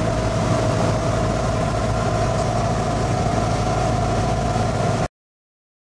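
Light aircraft's engine and propeller droning steadily inside the cockpit, a low rumble with a constant hum over it. It stops abruptly about five seconds in.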